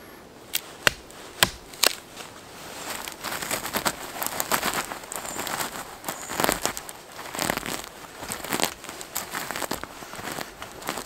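A hatchet knocks four times in the first two seconds as it splits kindling on a wooden stump. Then comes a long stretch of crackling, tearing and rustling as gloved hands rip up moss and dig into the soil beneath.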